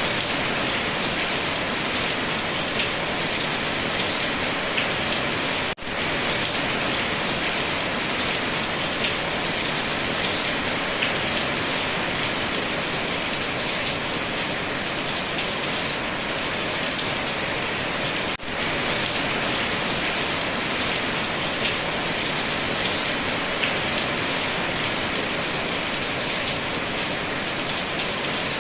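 Steady rain falling, an even hiss of drops. It cuts out for an instant twice, about six and eighteen seconds in.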